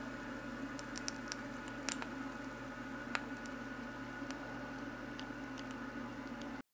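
Plastic case of a Cen-Tech digital multimeter burning and melting under a red-hot nickel ball, giving scattered sharp crackles and pops over a steady low hum. The sound cuts off suddenly just before the end.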